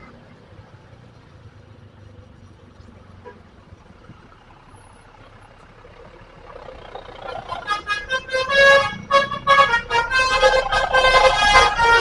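Multi-tone 'telolet' bus air horn sounding from about six and a half seconds in: a loud, reedy chord melody played in short, choppy blasts, after a stretch of low background noise.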